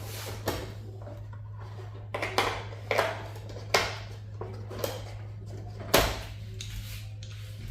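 Scattered clinks and knocks of small metal hand tools being picked through and handled, over a steady low hum.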